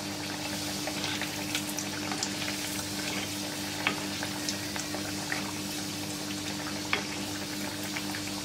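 Oil sizzling and crackling in a black iron kadai as a meat-stuffed pathiri deep-fries, with scattered sharp spits and two louder pops about four and seven seconds in, over a steady low hum.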